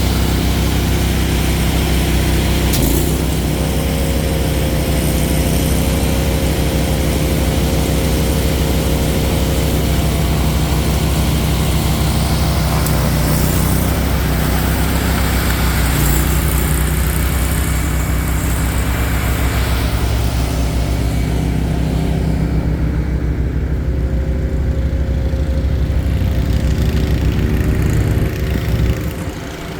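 Mahindra eMax 20 compact tractor's diesel engine running steadily while clearing snow with a Bercomac snowblower attachment. The level dips briefly near the end.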